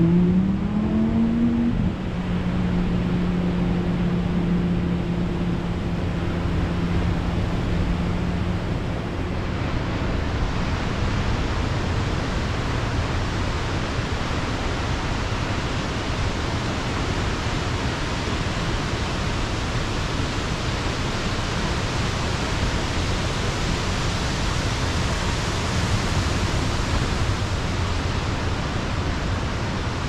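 Steady rush of ocean surf breaking and washing up the beach. For the first several seconds a low hum rises in pitch, holds steady, then fades out about nine seconds in.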